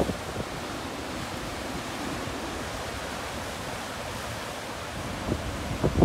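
Ocean surf breaking and washing over rocks: a steady rush of noise, with wind on the microphone. A brief bump comes at the start and a few more come near the end.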